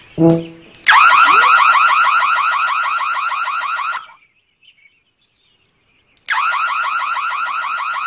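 Loud electronic alarm from a red rotating warning beacon, a rapid warbling tone. It sounds for about three seconds, stops, and starts again about six seconds in.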